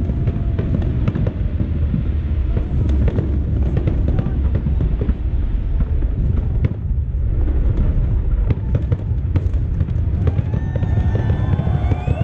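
New Year fireworks display going off in a rapid, continuous barrage of bangs and crackles over a heavy low rumble.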